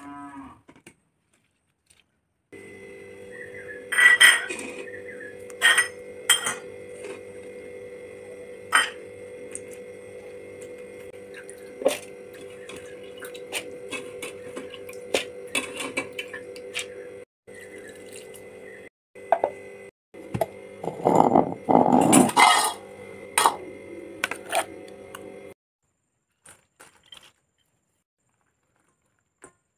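Steel kitchen vessels and utensils clinking and knocking now and then as soaked chana dal is handled, over a steady low background hum. A longer, louder clattering stretch comes about three-quarters of the way through.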